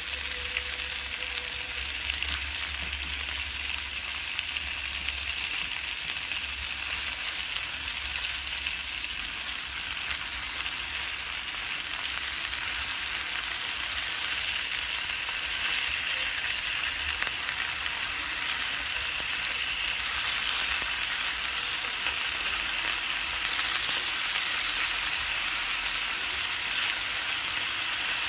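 Bacon-wrapped sausages sizzling steadily in a frying pan, the bacon rendering its fat and browning.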